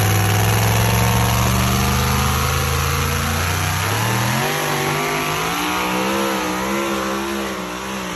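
Supercharged pickup pulling truck under full power as it pulls away down the track. The engine pitch climbs steadily, jumps higher about four seconds in, then wavers up and down as the sound grows fainter with distance.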